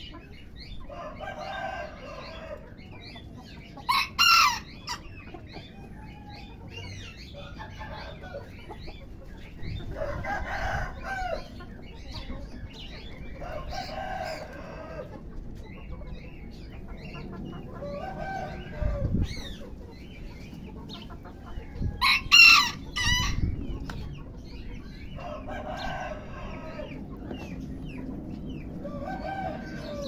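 Ayam Cemani chickens clucking and calling, a short call every few seconds, with two louder, higher-pitched calls, about four seconds in and about twenty-two seconds in.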